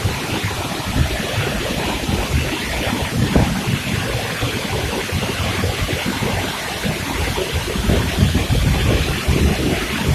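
Tall waterfall pouring into its plunge pool, heard from behind the falling curtain of water: a steady rushing with an uneven low rumble.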